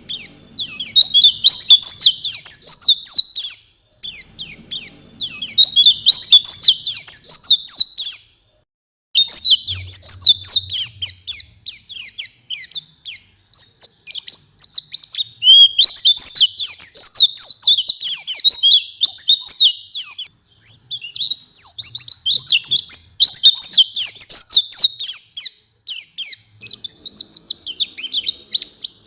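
Pleci (white-eye) singing in long, fast bursts of high twittering notes, with short pauses about 4 and 9 seconds in.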